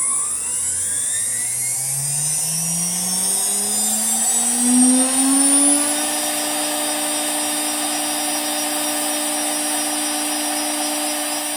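2.2 kW CNC router spindle spinning up: a whine that climbs in pitch for about six seconds, then holds steady at full speed.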